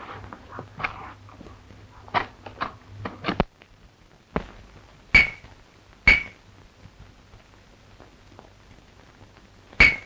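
Sharp knocks and clacks on an old film soundtrack: a run of quick knocks over a low hum in the first three and a half seconds, then louder single clacks with a brief ringing tone about five and six seconds in and again near the end.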